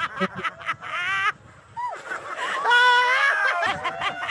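Laughter and excited, high voices in two bursts: a short one soon after the start and a longer one a little past the middle.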